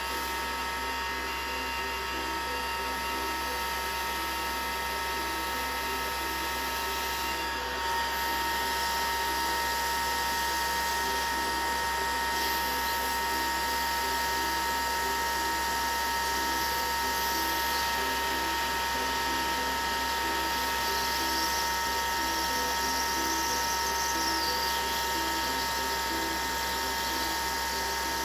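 Hot-air heat gun running steadily: its fan motor whines at one steady pitch over the rush of hot air. It is heating a key fob circuit board to melt the solder under a chip so the chip can be lifted off.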